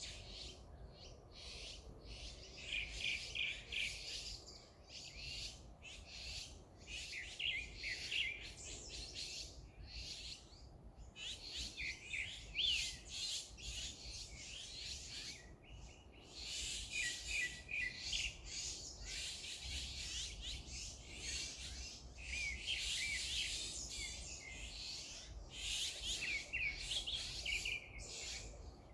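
Several songbirds singing and chirping, with quick, high twittering phrases in near-continuous bouts broken by short pauses.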